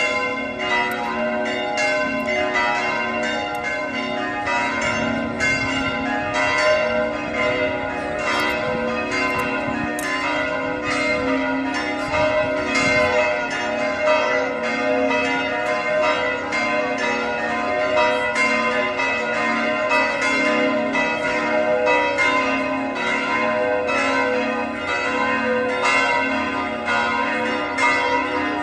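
Church bells ringing continuously, struck about two to three times a second, the strokes overlapping so that several long ringing tones hang together.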